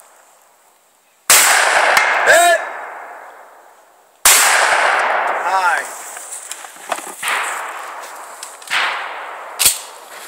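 Two shotgun shots about three seconds apart, each with a long echoing decay, followed by lighter metallic clacks and knocks.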